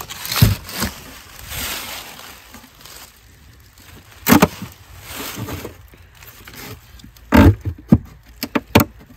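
Wooden beehive boxes and covers being handled: a run of sharp knocks and clunks, about half a second in, about four seconds in and several close together near the end, with scraping between them.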